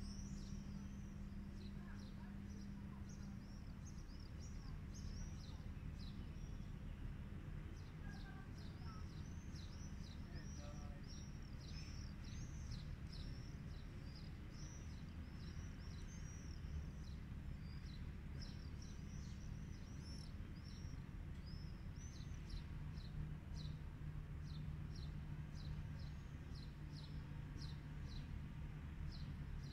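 Small birds chirping rapidly and repeatedly, in short high arched notes, over a low steady city rumble.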